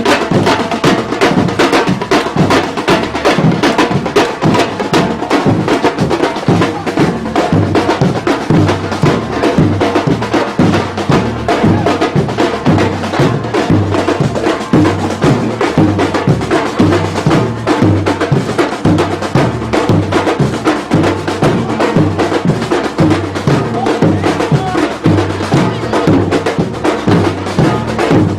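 Afro-Brazilian batuque percussion ensemble playing a dense, driving rhythm: many drums struck together over a repeating low drum beat, with fast crisp strikes on top.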